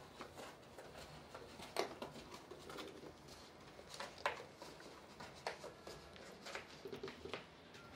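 A cat moving through a cardboard tunnel: faint, irregular knocks and scrapes of its paws and body against the cardboard, with a quick cluster of taps near the end.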